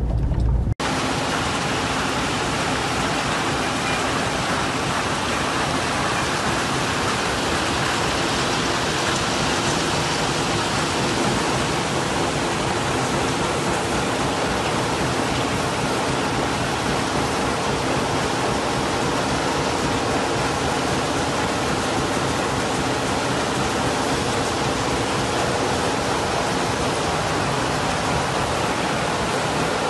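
Rock-crushing plant running: a steady, even roar of crushers and conveyor belts carrying broken stone, with a faint machine hum under it. It cuts in abruptly just under a second in.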